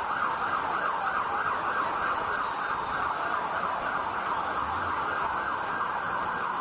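Emergency vehicle siren sounding in a fast, rapidly wavering warble.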